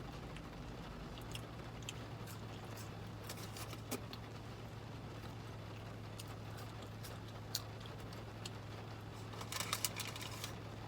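Faint chewing and mouth sounds while eating: scattered soft clicks and smacks, a few more just before the end, over a steady low hum.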